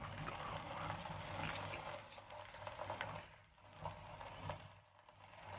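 Ration fried rice sizzling and crackling faintly in its open metal tin over a portable gas stove's flame. The sizzle comes in uneven spurts of small crackles.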